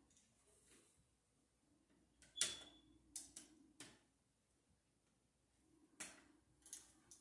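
Small metal clicks and taps from hand tools and wire being worked against a wall receptacle's terminals, a handful scattered through near silence, the loudest about two and a half seconds in with a brief metallic ring.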